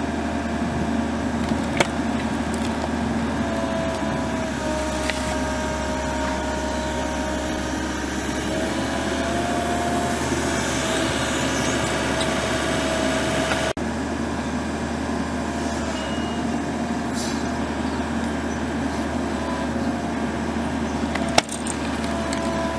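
Heavy machinery engine running steadily, with a faint wavering whine over it and a brief break about two-thirds of the way through.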